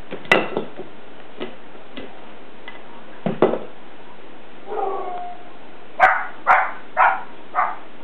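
Glass lid of a cookie jar clinking and scraping as a blue-and-gold macaw pries at it with her beak, a few sharp clinks in the first half. About five seconds in comes a short pitched call, then four loud short calls about half a second apart near the end.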